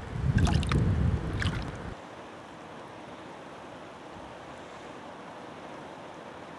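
Water sloshing and splashing as a plastic Garrett gold pan is worked in a shallow creek, with low rumbling, for about two seconds. After that there is only a faint steady hiss as the fine material is swirled gently in the pan.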